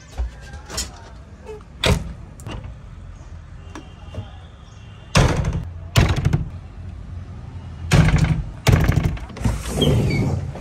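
Cab door of a JCB 3DX backhoe loader being worked open and shut: a series of sharp knocks and slams, the loudest in the second half, with a rattle of the door glass near the end.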